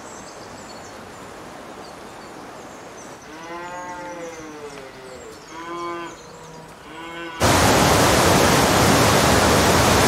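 Cattle mooing: one long call about three seconds in, then two shorter ones. About seven and a half seconds in the sound cuts suddenly to a loud, steady rush of white water pouring over a weir.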